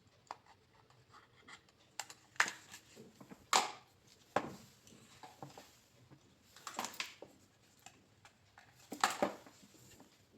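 Hands handling small plastic parts and components on a workbench while gluing them in place: a handful of short scrapes and rustles, with light clicks and taps in between.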